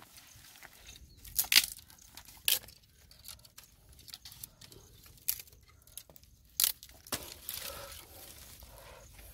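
Dry sticks and branches snapping as they are broken and laid on a small kindling fire: half a dozen sharp cracks spread through, the loudest about a second and a half in, with rustling of twigs near the end.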